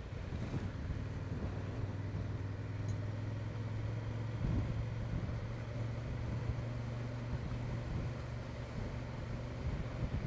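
Honda XL750 Transalp's 755 cc parallel-twin engine running steadily as the motorcycle rides along at low speed, a low, even drone.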